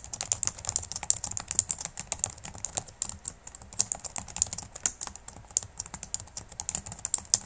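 Typing on a computer keyboard: a quick, uneven run of keystrokes, several a second, without a break.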